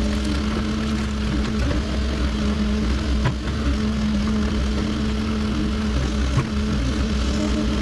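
Cat 308 excavator's diesel engine running steadily, with a couple of sharp knocks.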